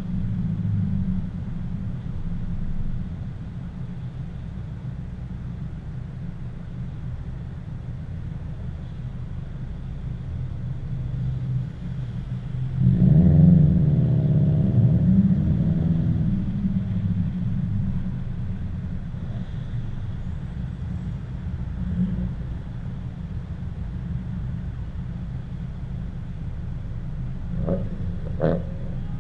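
Steady low wind rumble on the microphone with road noise from a moving car. About thirteen seconds in, a car engine revs hard for about three seconds, its pitch rising and falling through the gears, then drops back under the wind. A few short sharp sounds come near the end.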